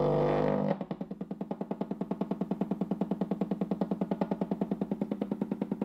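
Stepper motor driven by an A4988 driver: a steady whine for under a second, then slow, coarse stepping heard as even clicks, about ten a second.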